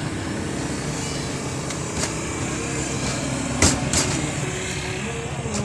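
Steady rumbling background noise of a busy night-market street, with a few sharp metallic clicks of a metal spatula striking a flat roti griddle, the loudest a little past the middle.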